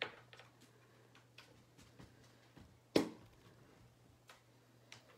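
Scattered light clicks and taps, one sharp at the start and a louder, sharper knock about three seconds in, over a faint steady low hum.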